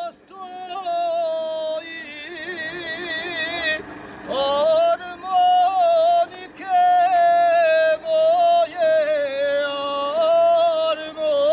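Men singing a bečarac, a traditional folk song, unaccompanied in loud, high held notes with a wavering vibrato. The voices break off briefly between phrases.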